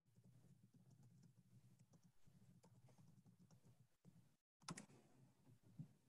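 Near silence with faint, scattered clicks of a computer mouse and keyboard, with one stronger click just before five seconds in.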